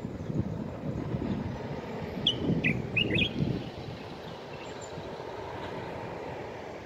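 Common bulbul giving a quick run of four or five short whistled notes about two to three seconds in, over a low rumble that is strongest in the first few seconds and then eases.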